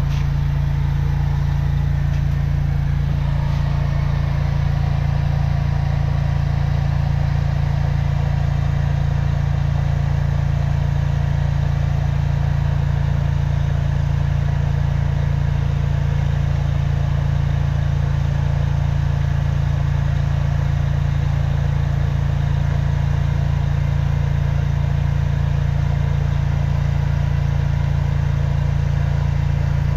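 High-pressure drain jetter's engine running at a constant steady drone while the jet works a root blockage in a sewer line.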